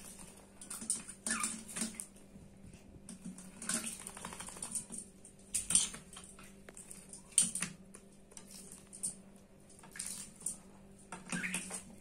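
Common mynas bathing in a steel bowl of water, splashing and flapping their wings in short bursts, about half a dozen times.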